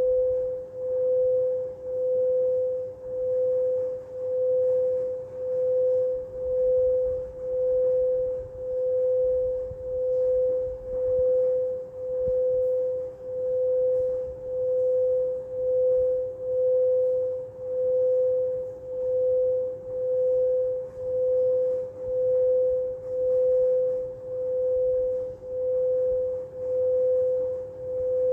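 Singing bowl played as a sustained tone: one steady, pure ringing note that swells and fades about once a second.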